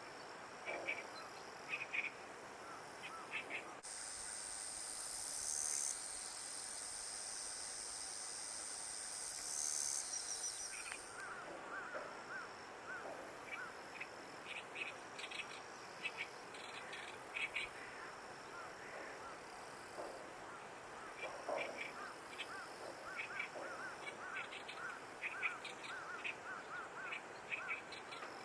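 Outdoor animal calls: many short, repeated chirps and clicks throughout. A loud, steady, high hiss with a thin whistle-like tone runs from about four to eleven seconds in.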